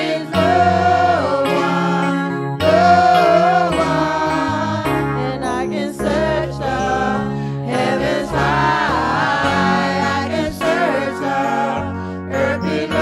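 Gospel worship song: voices singing long, gliding notes over instrumental backing with a low bass line.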